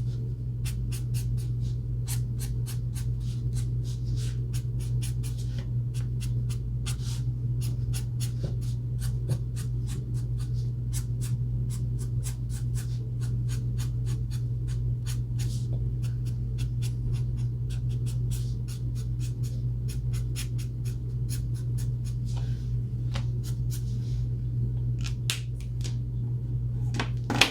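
Ohuhu alcohol marker tip stroking across paper in quick, short, repeated strokes, several a second, over a steady low hum.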